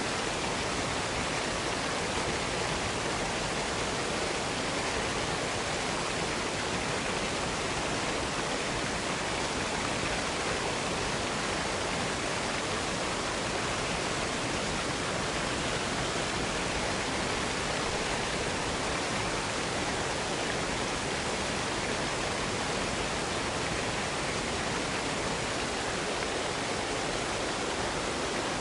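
Waterfall in a wooded box canyon rushing steadily, an even, unbroken hiss of falling water.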